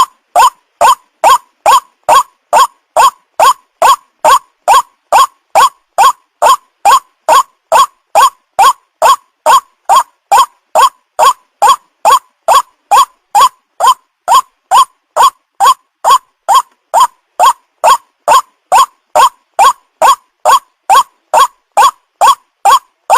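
White-breasted waterhen lure call of a young bird: one short call, strongest near 1 kHz, repeated evenly about three times a second without pause.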